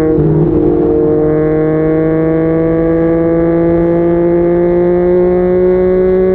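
Yamaha MT-09 inline three-cylinder through a Yoshimura R55 slip-on exhaust, pulling under load. The note stutters briefly just after the start, then climbs slowly and steadily as the bike accelerates.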